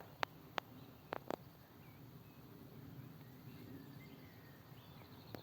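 Quiet forest ambience: a low steady outdoor rumble with a few faint, short bird chirps. Four sharp clicks come in the first second and a half, louder than everything else.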